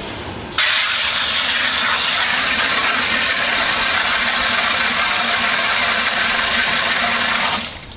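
Garden hose nozzle spraying water into a plastic five-gallon bucket: a steady rushing hiss that starts suddenly about half a second in and cuts off near the end.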